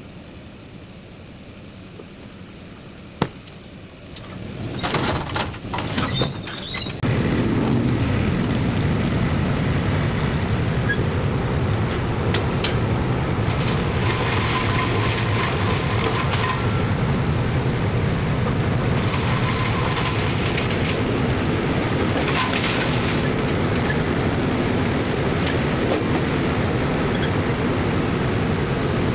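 Tractor engine running steadily, starting loud about seven seconds in after a sharp click and a few seconds of irregular knocks and rustling; higher noisy surges come and go over the engine's steady drone.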